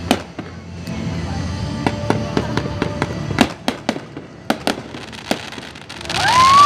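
Fireworks bursting: sharp bangs and pops scattered throughout. About six seconds in, a loud whistle rises in pitch.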